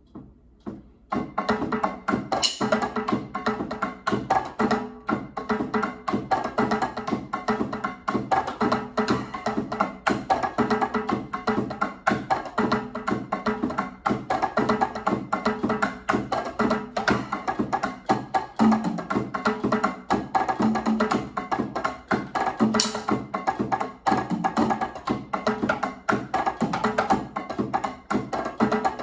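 Latin-style percussion played on an electronic drum kit with sticks: a dense, steady groove of strikes that starts about a second in, heard together with sustained pitched music.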